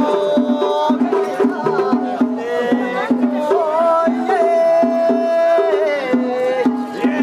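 Festival music: drums beat a steady two-note pattern under a high melody line that holds and bends long notes.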